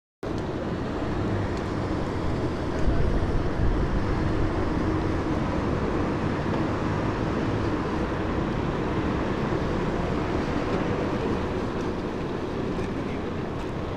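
Steady wind buffeting on the microphone and road rumble from a bicycle riding along a street, cutting in after a moment of silence, with a stronger gust of rumble about three seconds in.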